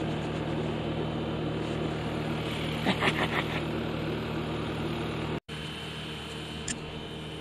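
An engine idling steadily in the background, a low even hum, with a few short crisp rustles about three seconds in.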